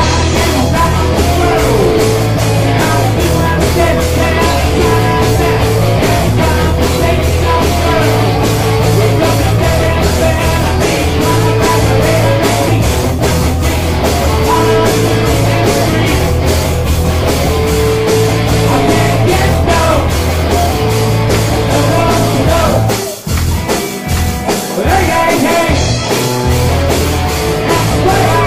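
Rock music with singing and electric guitar over a steady bass and drum beat. The bass and drums drop out briefly near the end, then come back.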